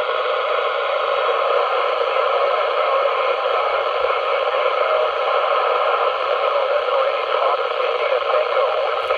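Steady hiss from an Icom ID-5100 FM mobile radio's speaker with the squelch fully open on the 2 m band, tuned to the AO-85 satellite downlink. The open squelch lets the receiver's noise through so a signal too weak to break the squelch can be heard.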